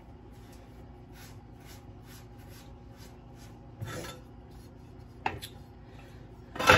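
Hands shaping a ball of bread dough on a floured wooden cutting board: soft, even rubbing strokes about three a second as the dough is pulled under itself to tighten its surface. About four seconds in, a metal bench scraper scrapes across the board, and a sharp clack comes at the very end.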